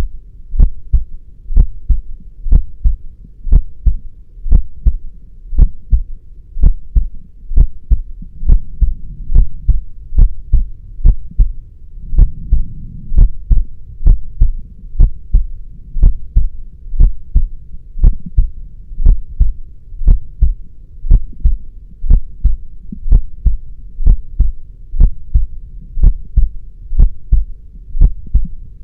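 Heartbeat beating steadily at about one beat a second, each beat a low double thud (lub-dub) over a faint low rumble.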